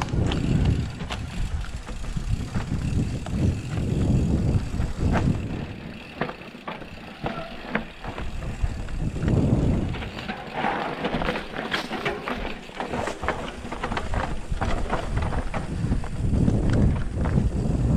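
Mountain bike descending a rough dirt singletrack: the clatter and rattle of the bike over the rocky, leaf-strewn trail, with many sharp knocks, over wind rumbling on a helmet-mounted microphone in surges every few seconds.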